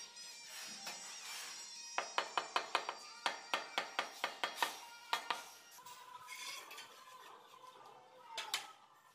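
A quick run of about fifteen sharp taps on ceramic wall tiles, roughly four a second, as tiles are knocked into place on the wall; the tapping stops a little past halfway, and a single tap comes near the end.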